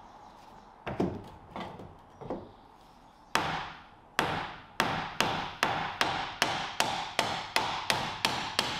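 Hammer blows on wood: a few spaced knocks, then a steady run of blows at about two and a half a second from about four seconds in.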